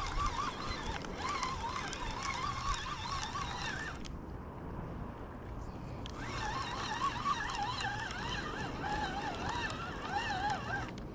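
Spinning fishing reel being cranked to retrieve line, a whirring whose pitch wavers with each turn of the handle. The cranking pauses for about two seconds partway through, then resumes.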